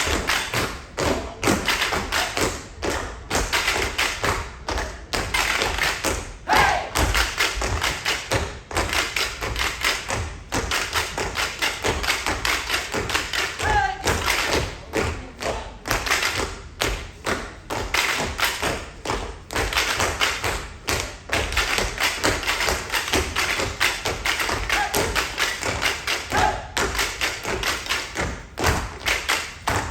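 Tap-and-stomp percussion routine: fast, rhythmic taps and thuds, several a second, from tap shoes and stomping feet.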